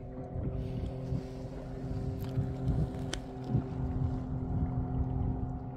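Steady drone of a motorboat engine, with wind rumbling on the microphone, and a single sharp click about three seconds in.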